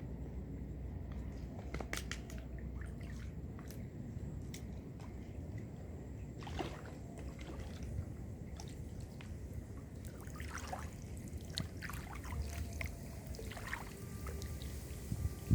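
Water sloshing and dripping with scattered small knocks, over a steady low rumble.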